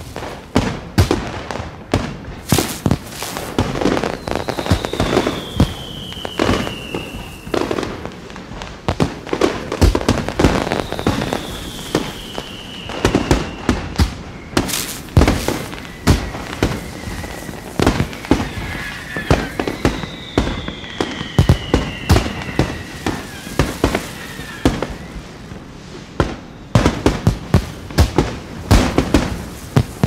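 Fireworks display: aerial shells going off in rapid, irregular bangs. Whistles falling in pitch cut through three times, about 4, 11 and 20 seconds in, and the bangs come thicker near the end.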